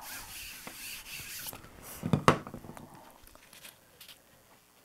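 A hand baren rubbing over paper laid on a gel printing plate, burnishing an acrylic transfer; the rubbing stops about a second and a half in. A single knock follows, then faint paper rustling as the corner of the print is lifted.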